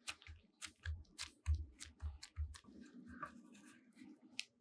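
Hands pressing and patting a folded, filled tortilla on a wooden board: a run of soft taps and crinkles with dull thumps, about three a second, stopping after nearly three seconds, then one sharper click near the end.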